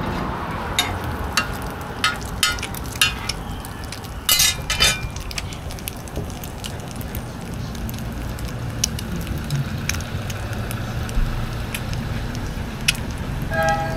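Roti frying in oil on a flat iron griddle: a steady sizzle. Sharp metallic clicks and clinks come in a quick cluster during the first five seconds, with a few more later.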